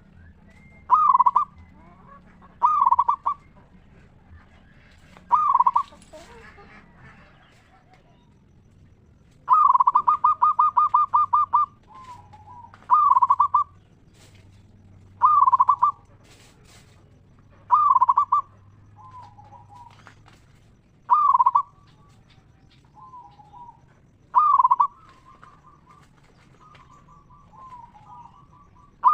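Zebra dove (perkutut) cooing: about nine loud phrases of rapid pulsed coo notes, one every two to three seconds, with one longer trilled run about a third of the way in. Fainter, lower coos come in between the phrases.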